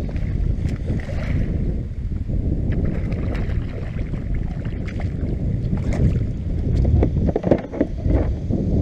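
Wind rumbling on the microphone over water sloshing around a kayak, with scattered splashes and knocks, busiest in the last few seconds, as a hooked bass thrashes at the surface.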